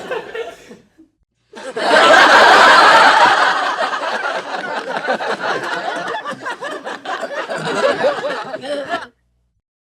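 A small crowd laughing together: one round of laughter fades out in the first second, then after a short gap a new round breaks out loudly and trails off into scattered chuckles before cutting off abruptly near the end.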